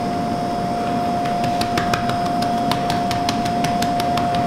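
A steady high hum, with light, irregular clicks and taps from about a second and a half in as hands press and reshape a rolled-out round of pie dough on a floured wooden board.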